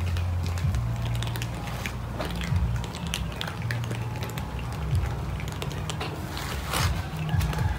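A crowd of cats crunching dry food pellets: dense, irregular crisp clicks of many mouths chewing at once, over a steady low rumble.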